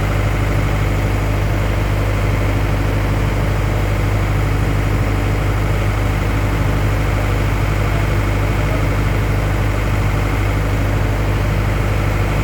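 Steady, unchanging hum of a running engine or motor.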